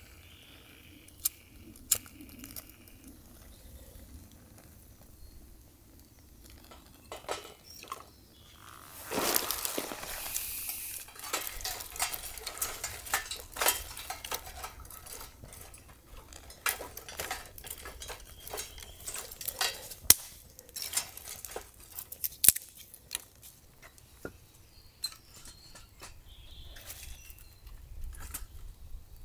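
Dry twigs and split kindling being laid onto a stainless-steel fire pit: scattered sharp knocks and clinks of wood on the metal, with a burst of twig rustling and snapping about nine seconds in.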